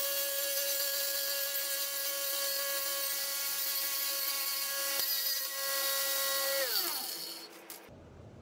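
Abrasive cut-off saw running with a steady high whine while its disc grinds through a steel wire mesh grate, with a hiss of grinding. About six and a half seconds in, the motor is switched off and the whine falls in pitch as the disc spins down, then the sound cuts off suddenly.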